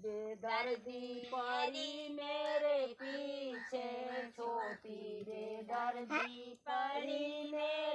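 Women singing a sohar, the North Indian folk song sung for a child's birth, in long held notes with short breaths between phrases.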